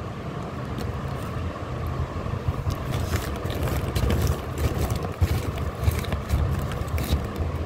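Lumps of half-roasted clay clicking and scraping against each other as a hand stirs through them in a sack. The clicks come thick and fast from a couple of seconds in, over a steady low rumble.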